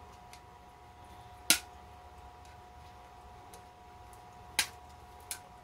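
Flush cutters snipping through the thin sheet metal of a jar lid to free its threaded ring: two sharp snaps about three seconds apart, with a smaller snap near the end and faint ticks between.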